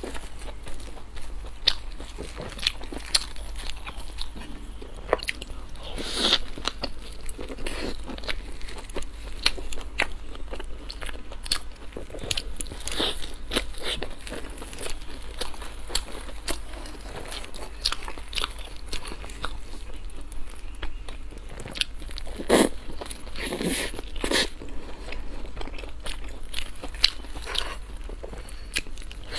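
Close-miked eating: a person bites into and chews large stuffed buns, with irregular crunchy bites and wet mouth clicks, a few louder crunches among them.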